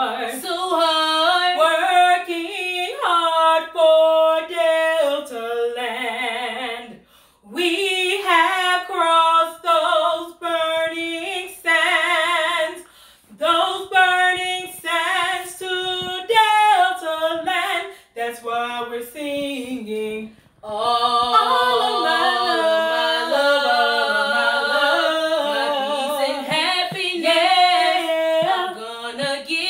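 Women's voices singing a Delta Sigma Theta sorority song, with short breaks between phrases; from about twenty seconds in, several voices sing together in harmony.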